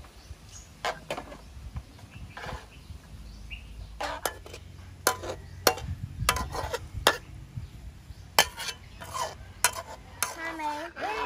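Metal spatula scraping and clinking against a stainless steel wok while stir-frying squid and chopped vegetables, the strokes sparse at first and coming quickly from about four seconds in.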